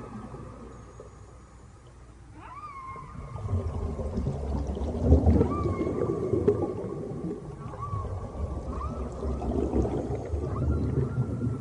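Whale song: a series of calls that rise sharply and then level off into long held tones, over a low rumble.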